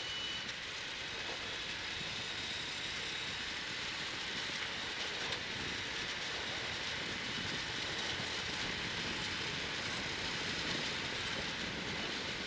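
Steady in-cabin noise of a cross-country rally car driving fast on a gravel track: engine, tyres on gravel and wind blended into an even, unbroken rush.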